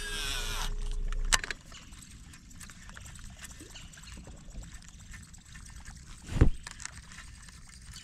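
A casting reel's spool whirs through a cast, its pitch slowly falling, and stops sharply about a second and a half in. Then comes a slow retrieve of a topwater frog lure: faint reel ticks and light water sounds, with one short loud knock about two-thirds of the way in.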